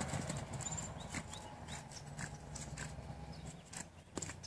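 Hooves of a foal and mare stepping on soft dirt: light, irregular taps over a faint low rumble.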